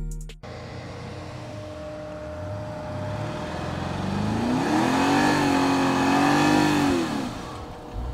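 Mercedes GLS 580's 4.0-litre biturbo V8 pulling hard up a sand dune: the engine note climbs a few seconds in, holds high with the wheels spinning and throwing sand, then drops away near the end.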